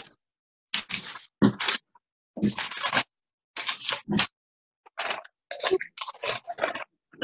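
Rustling and crunching of paper and plastic being handled, in a run of short bursts with dead silence between them where the video call's audio cuts off sharply.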